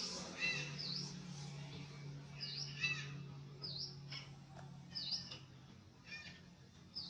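A bird chirping over and over, a short sharp note about once a second, mixed with other thinner squeaky calls.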